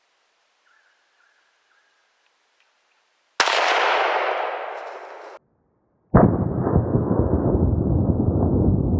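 .308 hunting rifle shot about three and a half seconds in, its echo fading over about two seconds before it cuts off. A little later a sudden loud, steady rumbling noise starts and runs on, heaviest in the low end.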